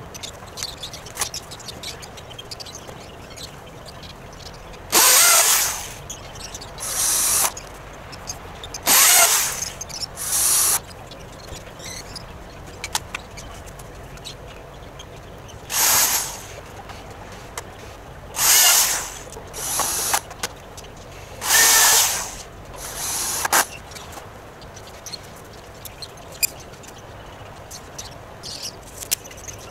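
Cordless drill-driver running in short bursts, about nine in all and mostly in pairs of a longer and a shorter burst, driving screws into the timber frame. Small knocks and handling sounds come between the bursts.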